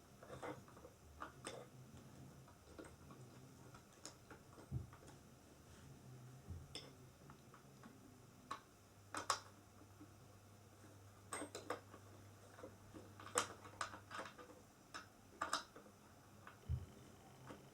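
Allen key turning bolts into a flat-pack chair frame: scattered, irregular small clicks and taps of metal on metal as the key is worked and repositioned.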